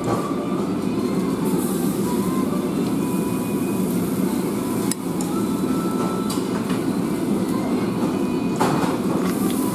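Steady rumbling hum from a built-in yakiniku table grill's burner and smoke-extraction unit, with a couple of light metallic clicks from tongs on the grill.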